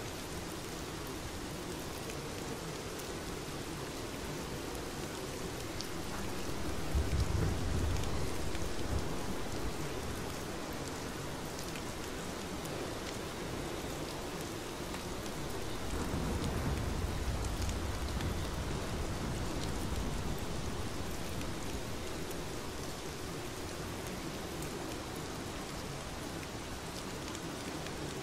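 Steady rainfall, a constant even hiss of falling rain. Twice, about a quarter of the way in and again just past the middle, a low rumble of distant thunder swells up and fades over a few seconds.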